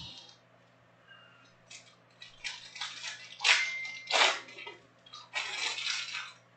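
Crinkly plastic and foil packaging of trading-card packs rustling in irregular bursts as it is handled, loudest twice near the middle.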